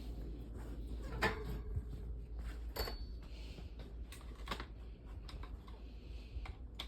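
Scattered clicks and knocks of handling as the camera is put back in place and the fan's plug is pushed in, the loudest about a second in and again near three seconds in.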